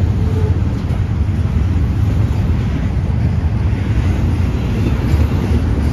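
Double-stack container train's well cars rolling past, a steady low rumble of steel wheels on rail.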